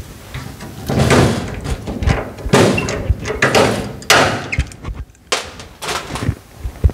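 Drill boring out aluminum rivets in a riveted aluminum floor panel, in several short bursts as the bit cuts through the rivet heads.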